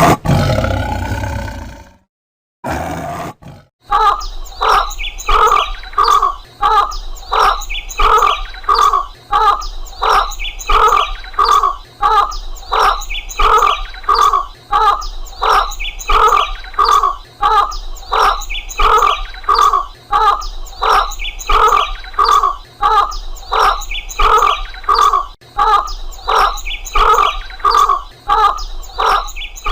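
An animal calling: one loud call at the start, then, after a pause, a long run of short repeated calls at a steady pace of about one and a half a second.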